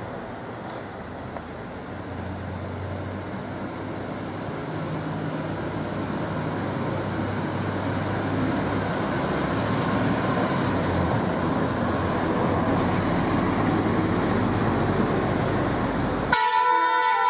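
Vehicle noise with a low hum, growing steadily louder. Near the end it gives way abruptly to a Harapan Jaya bus's telolet horn starting its multi-note tune.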